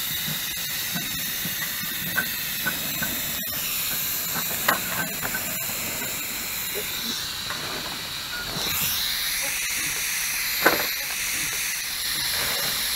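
5-inch gauge miniature steam locomotive hissing steadily, with scattered light clicks. The hiss swells and grows louder about eight to nine seconds in, and there is a single sharp knock shortly after.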